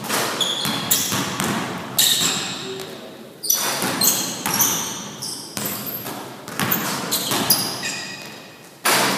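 Basketball being dribbled and shot in an echoing gym: a run of sharp bounces on the floor, each trailing off in a long echo, with short high squeaks between them.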